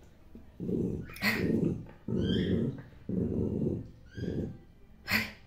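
Dog growling in short repeated bouts while chewing a plastic toy, some growls topped by higher falling notes, with a short sharp sound near the end.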